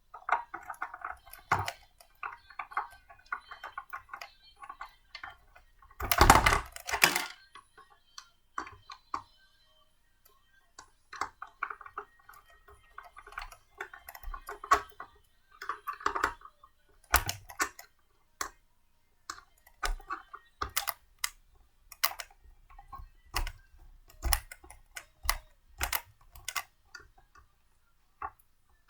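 Irregular clicks and knocks of blender parts being handled and fitted together during assembly, with a longer, louder burst about six seconds in.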